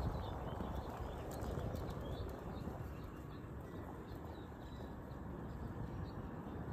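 Steady outdoor background noise with faint, scattered bird chirps, most of them in the first few seconds.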